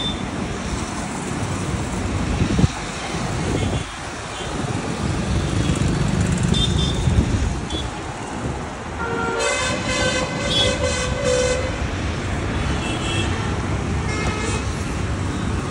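Steady road traffic noise, with a vehicle horn sounding for about two seconds a little past halfway through.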